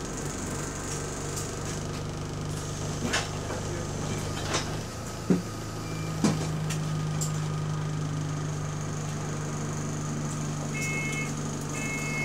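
Bus engine running with a steady low moan, heard from inside the passenger saloon. It dips briefly about five seconds in and then settles again. A few sharp knocks and rattles come through the middle, and short electronic beeps sound twice near the end.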